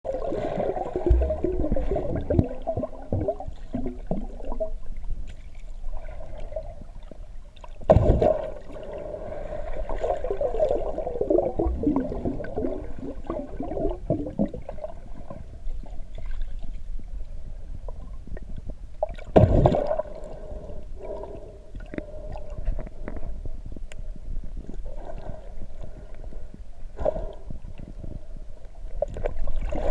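Muffled underwater sound of water gurgling and bubbling around a submerged camera, uneven and crackly, with two louder rushing surges, one about a quarter of the way through and one about two thirds through.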